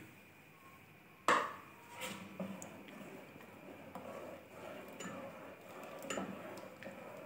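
A single sharp knock of metal cookware against an aluminium cooking pot a little over a second in, followed by faint clinks and scrapes of pan against pot as caramel is poured into the milk.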